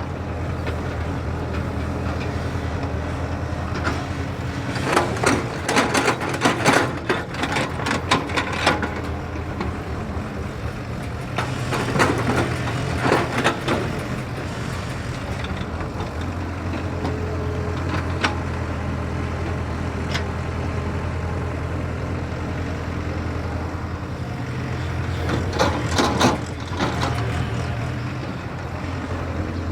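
Excavator diesel engine running steadily, with three bursts of metallic clanking and scraping from the digging work.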